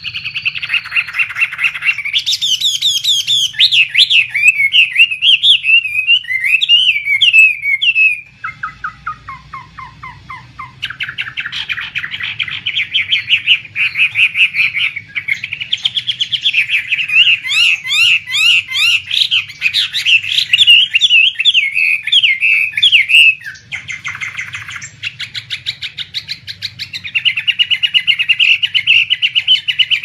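Chinese hwamei (poksay Hongkong) singing a long, loud, varied song of quick repeated phrases, rising and falling whistles and trills, with a couple of softer passages. A faint low hum lies underneath.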